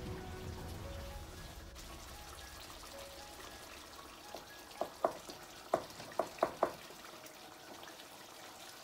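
Chicken karahi gravy frying and bubbling in a non-stick wok over a high gas flame, with a quick run of about eight sharp clicks in the middle.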